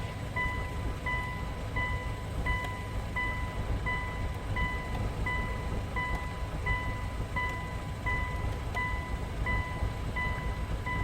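Electronic beeper sounding one even, high beep about every 0.7 seconds without change, over a steady low rumble.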